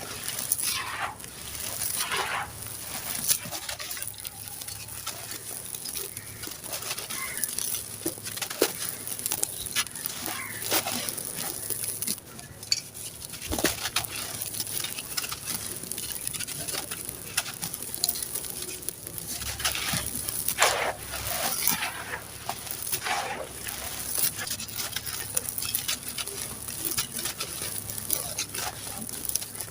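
Dry, gritty sand-cement crumbling and crunching in irregular crackles, with grains and dust pattering down and a few louder crunches scattered through.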